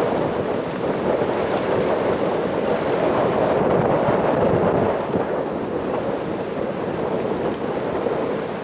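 Steady roar of a jet airliner's engines, swelling slightly and then easing off near the end.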